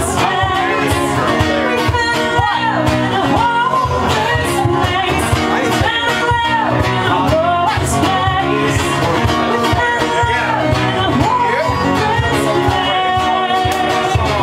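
Live acoustic performance: a woman sings the melody over a steadily strummed acoustic guitar.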